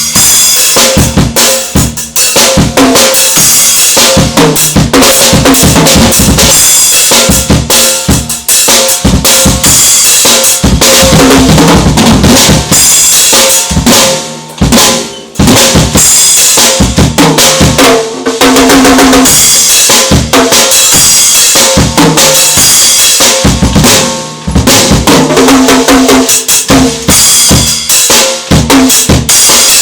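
Drum kit played loudly, with kick drum, snare and cymbals, during a band sound check, and held pitched notes from another instrument underneath. The playing stops briefly about halfway through and again a little later.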